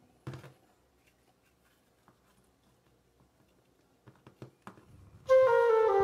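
Hands patting and pressing glitter slime on a table: one sharp smack about a second in, then faint sticky ticks and a few quick clicks near the end. Loud background music comes in about five seconds in.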